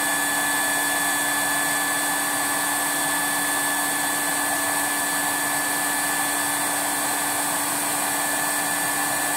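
Hot-air banner welding machine's blower running steadily after the heating is switched on, a constant rush of air with a steady hum, while the heater warms up toward the set temperature.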